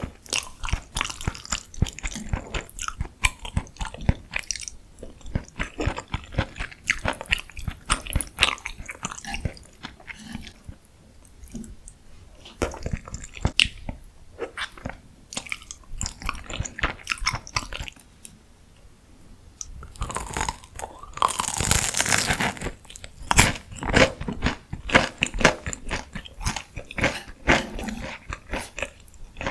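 Close-miked eating: crisp bites and crunchy chewing of deep-fried food, a rapid run of sharp crackles, with a longer, louder stretch of continuous crunching about twenty seconds in.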